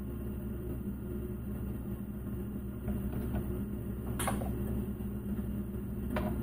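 Steady low machine hum of a room, with a sharp knock about four seconds in and a shorter click just after six seconds.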